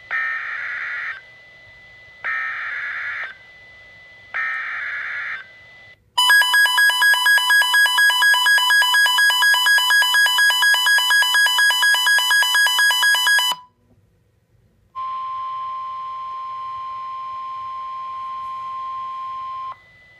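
Emergency Alert System header: three short bursts of screechy digital data tones (the SAME header), about a second each and a second apart. A loud pulsing electronic alert tone follows for about seven seconds. After a brief gap comes a steady single-pitched tone for about five seconds, the NOAA Weather Radio warning alarm tone.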